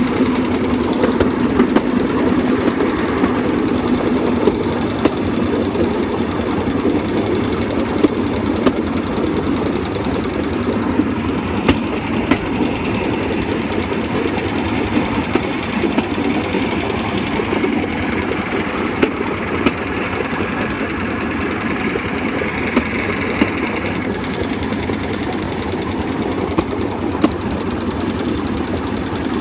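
Bamboo train's small engine running steadily as the platform rattles along the rails, with sharp clacks every second or two.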